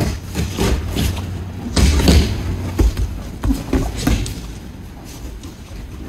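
Feet and bodies thudding and scuffing on dojo mats as aikido partners throw and take falls, a quick cluster of heavy thuds about two seconds in, easing off after about four seconds.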